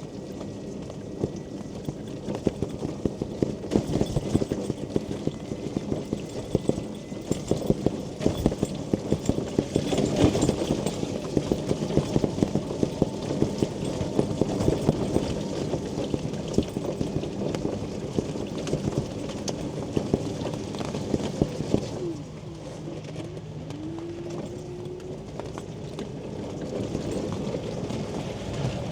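Rain pattering on a mobility scooter's canopy, a dense run of small taps, over the steady hum of the Quingo Toura Mk2 scooter's electric drive. A brief rising whine comes about four fifths of the way through.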